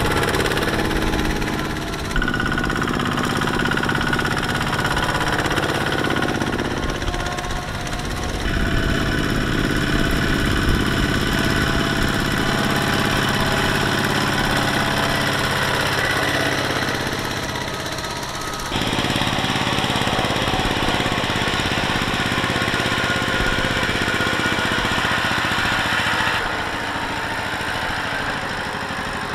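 Single-cylinder diesel engines of two-wheel walking tractors running under load while pulling trailers of rice sacks through deep mud. The sound is steady throughout, but its pitch and loudness change abruptly a few times.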